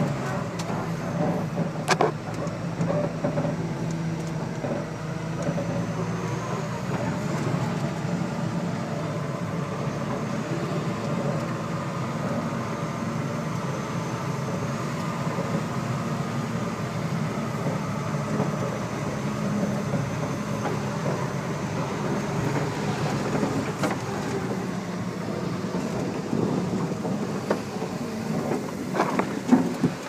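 Loaded concrete mixer truck's diesel engine running steadily, with a faint high whine that rises and falls. A sharp knock comes about two seconds in and another near the end.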